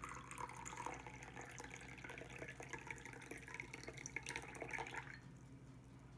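Tea poured in a steady stream from a pitcher into a glass teacup, splashing and bubbling in the cup; the pouring stops about five seconds in.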